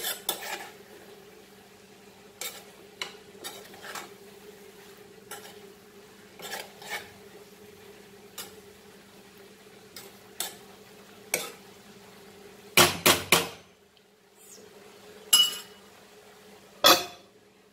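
Metal spoon stirring wet red amaranth leaves and dal in a non-stick kadai: scattered scrapes and clinks against the pan, with a few louder clanks near the end. A steady low hum runs underneath.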